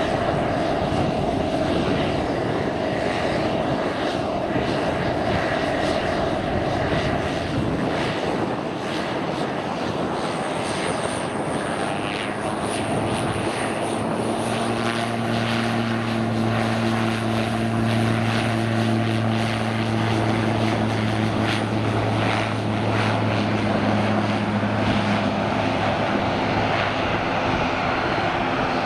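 Pilatus PC-12's single Pratt & Whitney PT6A-67B turboprop going to takeoff power. A thin high turbine whine rises in pitch from about ten seconds in, and a steady low propeller drone sets in a few seconds later and holds as the aircraft rolls and lifts off.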